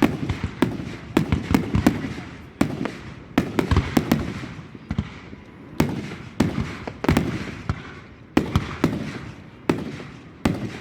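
Aerial fireworks display going off: an irregular series of sharp bangs, sometimes several close together, each trailing off in a rumbling echo.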